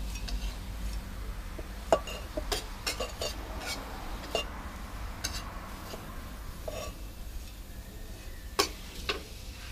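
Dishes and cooking utensils being handled, making scattered clinks and knocks: about a dozen sharp taps, the loudest about two seconds in and another near the end.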